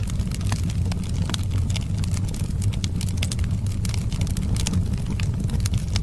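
Wood fire crackling, with many small sharp pops and snaps several times a second over a steady low rumble of the flames.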